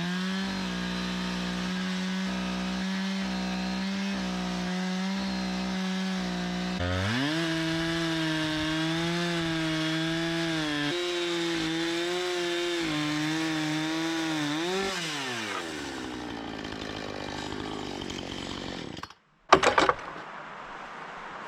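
Chainsaw mounted in a chainsaw mill ripping a log lengthwise into lumber, its engine held at steady high speed under load. The pitch shifts about a third of the way in and wavers, then the engine winds down about 15 seconds in. After a short break near the end there is a brief loud noise.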